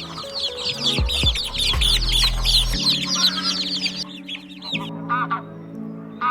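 Birds calling: a dense run of rapid, high peeping calls for about four seconds, then after a short pause a few lower calls near the end. Background music plays underneath.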